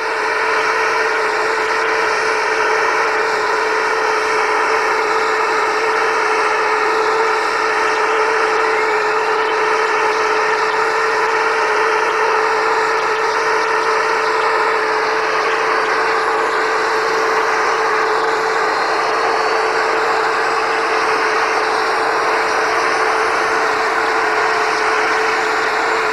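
Mi-8MTV-1 helicopter's turbine running on the ground with its main rotor standing still: a steady whine over a loud rushing noise, with a faint tone rising in pitch after about 15 seconds.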